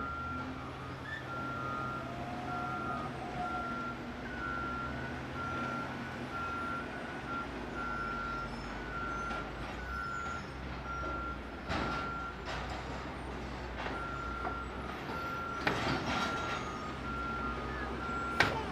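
Backup alarm of a heavy construction machine beeping steadily in one tone, stopping for a few seconds partway through and then starting again, over a low engine running. A few sharp clanks and bangs in the second half.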